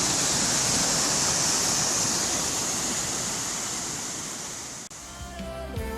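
Waterfall rushing: a steady hiss of falling water that fades out about five seconds in. Music comes in just before the end.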